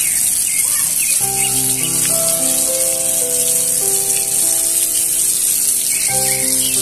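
Oil sizzling steadily as eggplant slices shallow-fry in a miniature clay pan. An instrumental music track with held notes comes in about a second in and plays over it.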